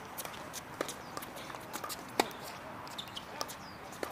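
Tennis ball knocks during a rally: several sharp hits of racket strikes and bounces, the loudest about two seconds in.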